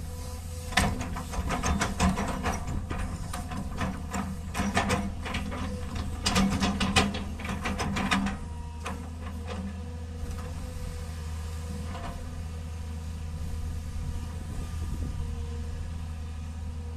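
Sunward amphibious excavator's engine running steadily, with a dense run of metallic clanks and knocks for the first half, easing to the engine alone with only an occasional knock.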